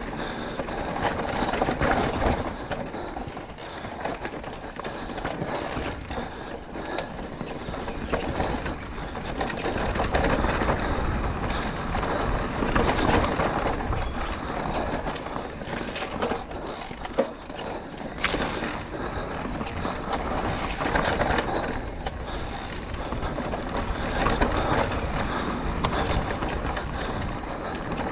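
Electric mountain bike rolling down a dirt trail: tyres on the ground, with the frame and parts rattling over bumps, and wind on the microphone. There is a sharp knock partway through.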